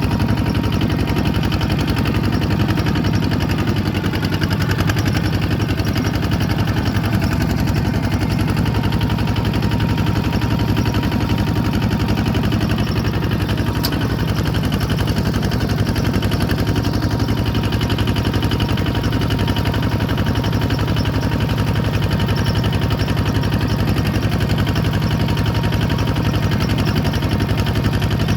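Bulldozer's diesel engine running steadily at an even speed, with no revving up or down.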